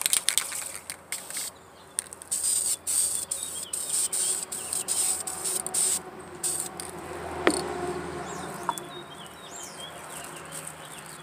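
Aerosol rattle can of silver metallic spray paint hissing in a run of short passes with brief breaks, stopping about six or seven seconds in.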